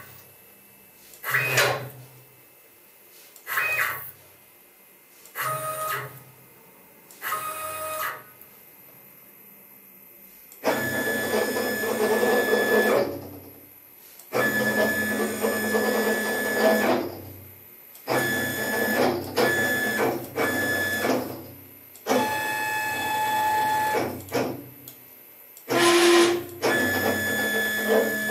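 Stepper motors of a homemade CNC gantry router driving its axes: four short moves about two seconds apart, then longer runs of several seconds each with a steady whine, stopping and starting as the machine follows a programmed path.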